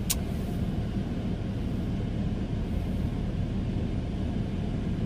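Steady low rumble of a stationary car heard from inside the cabin, from the running engine or climate fan, with one brief click near the start.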